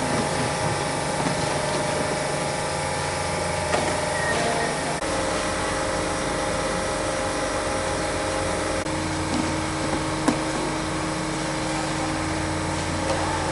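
Calibrex NOVAGRAM+ peach grading machine running: a steady machine hum with a few single sharp clicks.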